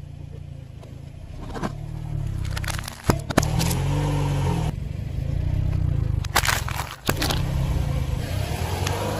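A car engine running at low speed as a tyre rolls over aluminium drink cans and a plastic bottle on asphalt, with sharp crunching cracks about three seconds in and again at about six and a half seconds.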